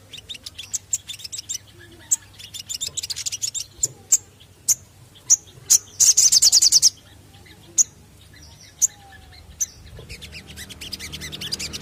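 Male olive-backed sunbird singing: a quick run of high, sharp chirps and single notes, with a loud rapid trill about six seconds in.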